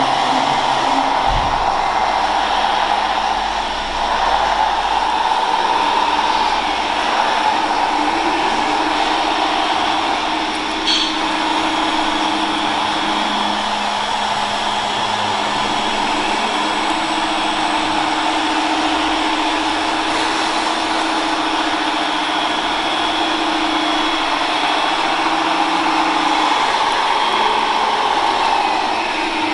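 Radio-controlled model tipper truck running: a steady whirring with humming tones that come and go several times.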